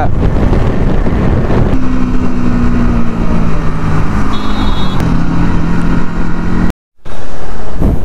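Bajaj Pulsar NS200 single-cylinder motorcycle riding through city traffic, with heavy wind rush on the handlebar-mounted microphone and a steady engine note that eases down a little. The sound cuts off abruptly near the end, then a loud, noisy street scene follows.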